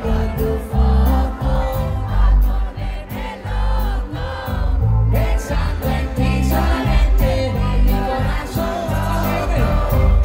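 Live reggaeton music over a concert PA: a heavy, pulsing bass beat with a male singer's amplified vocals on top and crowd voices singing along.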